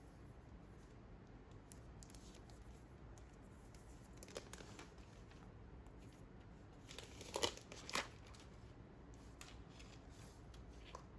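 Packaging being opened by hand: faint tearing and crinkling with scattered small clicks, and a couple of louder crackles about seven to eight seconds in.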